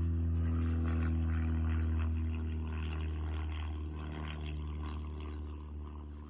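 An airplane passing overhead, its engine drone steady in pitch and slowly fading away.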